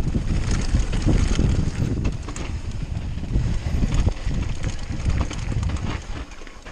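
Wind buffeting the microphone over the rumble of downhill mountain bike tyres on a rough dirt trail, with sharp clicks and rattles from the bike. The noise eases off near the end as the bike slows.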